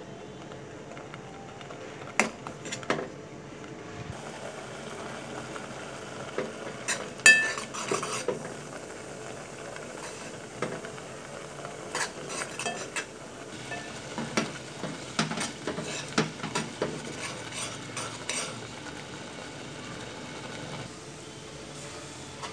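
Metal spoon stirring and scraping a thick, sticky raw-mango and jaggery mixture in a steel pot. Irregular clinks and scrapes of spoon on pot, the loudest about 7 seconds in, over a steady faint hiss.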